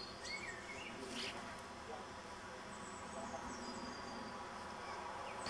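Quiet back-garden ambience: a steady faint buzzing hum, with scattered short high chirps and twitters from small birds.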